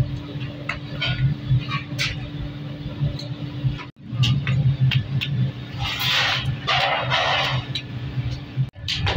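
Shovel and tongs scraping and knocking in foundry sand as brass tap castings are dug out of a sand mould, with a rush of sliding sand about six seconds in. A steady low machine hum runs underneath.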